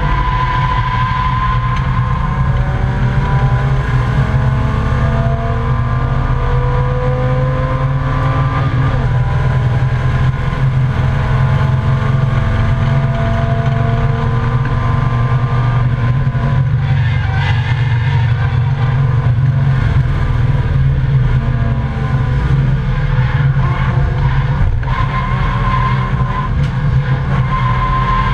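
Volvo 855 race car's inline five-cylinder engine running hard under load inside the stripped cabin, its pitch climbing as it accelerates and dropping at a gear change about nine seconds in before climbing again. Steady low drone with road and wind noise throughout.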